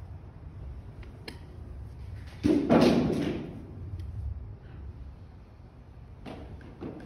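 A sudden loud thump about two and a half seconds in, fading over about a second, with a few faint clicks before and after it.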